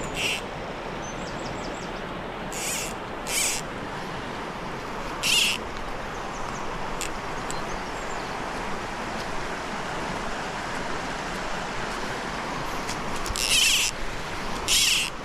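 Steady rush of a small river's flowing water, with half a dozen short, high-pitched sounds scattered through it: three in the first few seconds, one at about five seconds and two near the end.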